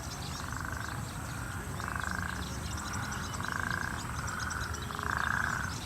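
An animal calling four times, each call a buzzy trill about half a second long, repeated roughly every one and a half seconds, the last the loudest, with faint high chirping behind.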